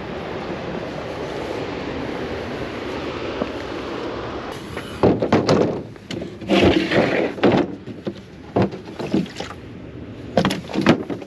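Steady rush of water pouring over a spillway. From about halfway it gives way to a run of sharp knocks and rustling handling noise.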